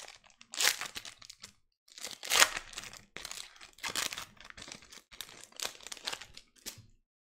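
Foil trading-card pack wrapper crinkling and tearing as it is opened by hand, in several uneven bursts, the loudest about two and a half seconds in.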